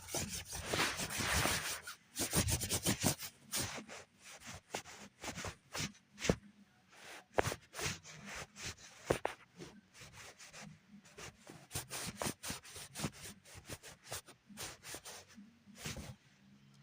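Irregular scratching and rubbing, with a stretch of rubbing near the start followed by many short, uneven clicks and taps.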